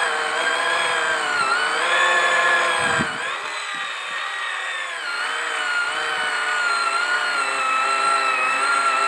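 Small electric motor of a toy pottery wheel running steadily with a whine of several pitches, while wet clay is centred by hand on the spinning wheel head. The pitch wavers and dips a few times, most clearly about three seconds in.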